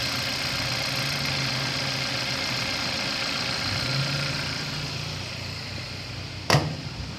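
2012 Hyundai Accent's 1.6 L four-cylinder engine idling smoothly with no misfire, its new ignition coils fitted. The engine sound fades after about five seconds. A single sharp thump comes near the end.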